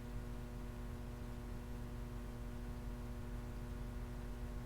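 Steady electrical mains hum with several overtones and a faint hiss, a constant buzz picked up by the sound system or recording chain.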